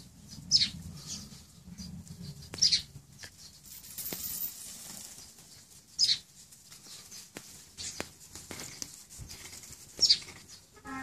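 Wild bird calling from the bamboo nearby: four loud, short, high calls, each falling in pitch, a few seconds apart, with fainter calls between. Low rustling underneath in the first few seconds.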